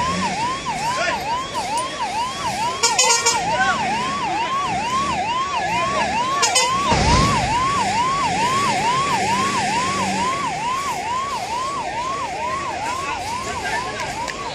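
Emergency-vehicle siren in a fast yelp, its pitch rising and falling about two to three times a second. About seven seconds in, a dull boom comes from the burning fire as a fireball goes up.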